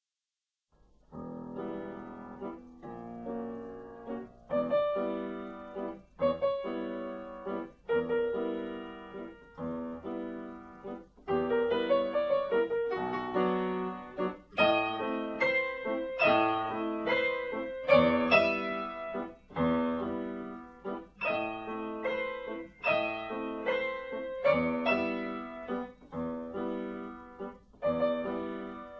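Piano music: chords struck one after another, about one every second or so, each ringing and fading before the next. It starts about a second in, out of silence.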